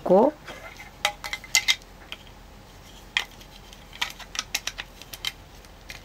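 Hard plastic toy parts clicking and tapping against each other, a scatter of short sharp clicks, as a clear plastic stair piece is fitted onto a small plastic tower of a Bandai Pretty Cure playset.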